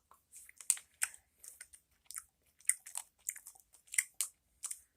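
Close-up chewing of a Warheads sour gummy candy: irregular, wet, clicky mouth sounds, a few a second.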